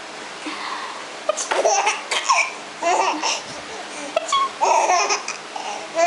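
A baby laughing in several short bursts.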